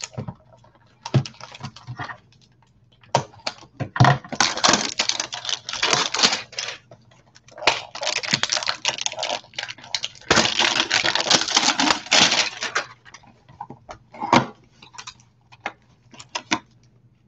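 A trading-card hanger box being unwrapped and opened by hand: crinkling and rustling of the packaging in three spells of a few seconds each, with scattered clicks and taps of cardboard between them.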